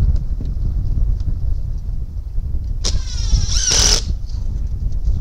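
Power drill-driver fastening the OSB roof board once, about three seconds in: a short motor whine that falls in pitch under load and stops abruptly. Wind buffets the microphone throughout with a steady low rumble.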